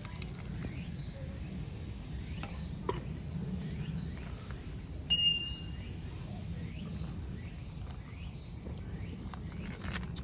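Crickets trilling in one steady high tone over a low background rumble, with a single sharp clink about five seconds in.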